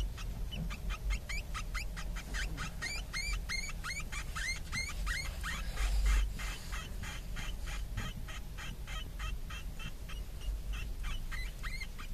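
A litter of Djungarian hamster pups squeaking in the nest: a rapid, unbroken run of short, high chirps, each rising in pitch, several a second. A brief rustle comes around the middle.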